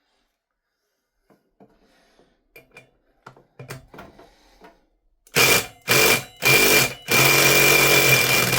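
Faint clicks and knocks of tool handling, then a handheld power tool triggered in three short bursts about half a second apart, then run continuously with a steady high whine, as used to work fasteners on a motorcycle rear wheel.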